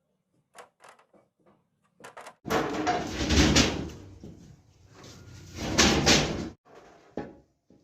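Metalworking in a sewing machine workshop: a few light knocks, then a loud, harsh noise that swells twice over about four seconds and stops abruptly.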